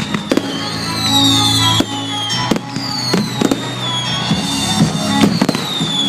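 Fireworks going off in a string of separate bangs, heard over music with sustained notes and a repeating falling melody.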